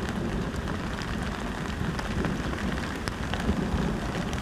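Steady heavy rain, with many separate drops ticking sharply against the steady rush.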